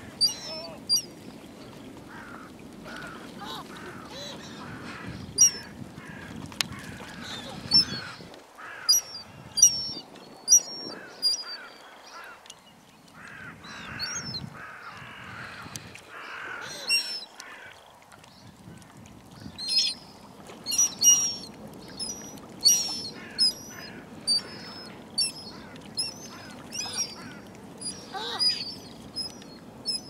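Flock of birds, gulls among them, calling with many short, sharp cries, single and in quick clusters, some overlapping, over a steady low background hum.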